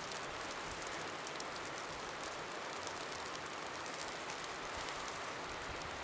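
Steady hiss of a snowstorm outdoors, with a fine, faint patter of falling snow.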